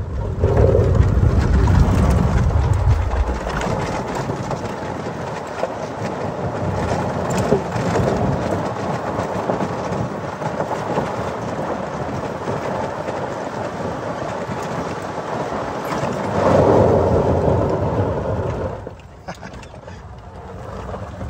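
Electric golf cart driving over a gravel road: a steady rush of tyre crunch and road noise, with a deep rumble for the first few seconds and a louder stretch a few seconds before the end, then quieter near the end.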